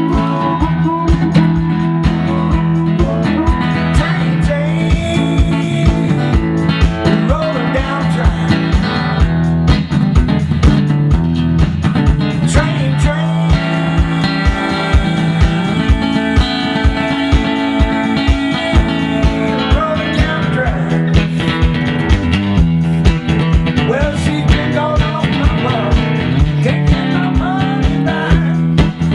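Acoustic-electric guitar playing a blues tune with a steady, driving rhythm, with a harmonica wailing over it in gliding, bent notes.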